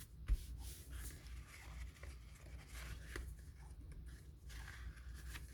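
Soft rubbing and rustling of cardstock as a glued, folded paper card is pressed flat, with a few light taps, the sharpest about a third of a second in.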